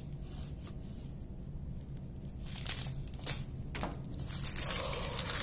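Small plastic bags of diamond painting drills being handled and sorted, with scattered crinkling rustles and light clicks that thicken near the end. A steady low hum runs underneath.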